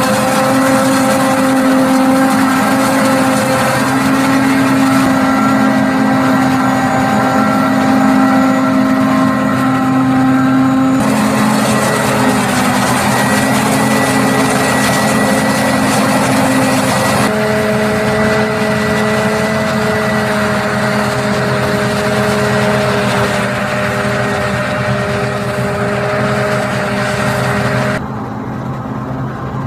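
New Holland FR500 self-propelled forage harvester running under load while chopping standing maize, with a Fendt tractor running alongside; a steady, loud machine drone with several held humming tones. Near the end it gives way to a quieter engine sound.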